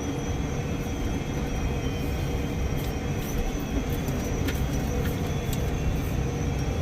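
Tractor engine running steadily, with a few faint ticks.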